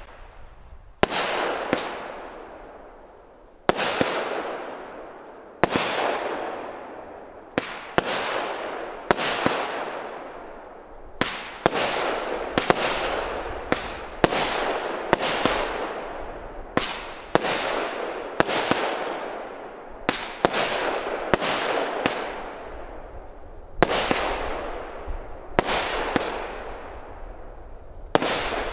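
Euregio 'Green Smaragd' consumer firework battery firing shot after shot. Each sharp report is followed by a fading noisy tail. The shots come about two seconds apart at first and quicken to under a second apart from about seven seconds in.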